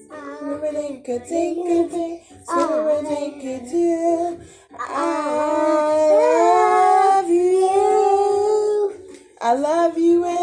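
A high voice singing a tune over steady background music, in short phrases with a long held, wavering note in the middle and a brief pause near the end.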